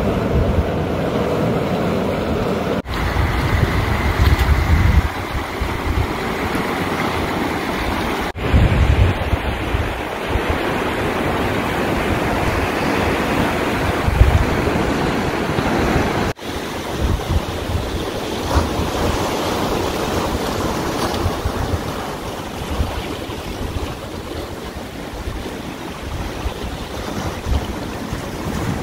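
Sea water washing around shoreline rocks, with wind buffeting the microphone in low gusts. The sound breaks off briefly three times where the shots change.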